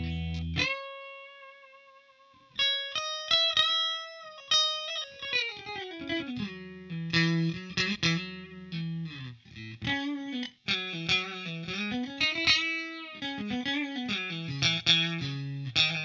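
Suhr Classic Pro electric guitar on a clean tone through a Line 6 POD HD500: a chord rings out, then a single held note with slight vibrato, then a melodic single-note solo line with quick runs and several string bends.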